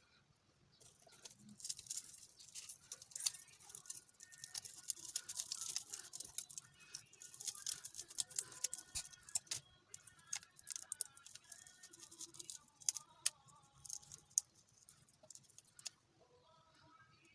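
Mantis shrimp shells being peeled by hand: dense, irregular crackling and small snaps of the thin shell breaking, with scraping as the shell is pulled away.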